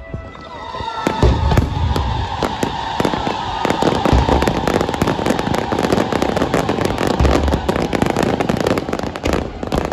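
Fireworks going off: rapid crackling and popping, with several low booms and a long whistle held over most of it.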